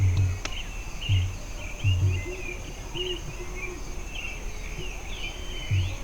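Wild birds chirping and singing in many short whistled notes over a steady high insect whine. Short low thumps come irregularly about once a second, louder than the birds, for the first three seconds and again near the end.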